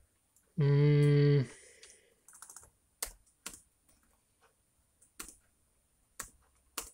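A loud, low electronic beep lasting under a second, starting and stopping abruptly: the computer's alert beep, the kind this Linux system gives when Tab is pressed in the terminal. After it come several single keystrokes on a laptop keyboard.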